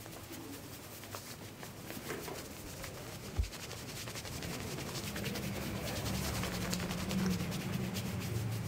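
Rustling and rubbing of a shirt sleeve as the arm is pulled and stretched during a massage, with faint crackling ticks. There is a single dull thump about three and a half seconds in, and a steady low hum sets in about halfway through.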